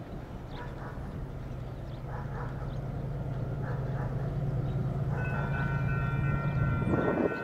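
Approaching freight train's diesel locomotives rumbling steadily, growing louder. About five seconds in, the locomotive horn sounds a chord of several steady tones. Faint bird chirps sit over the rumble.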